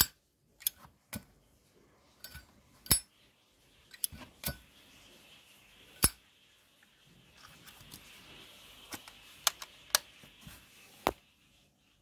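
Brass Zippo lighter being worked by hand: about a dozen sharp metallic clicks and clacks as the hinged lid is flipped open and snapped shut and the flint wheel is struck to light the wick.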